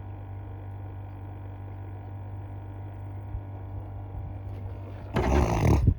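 Small bait aerator pump running with a steady low hum, keeping live shiners alive. Near the end there is a sudden loud noise lasting under a second.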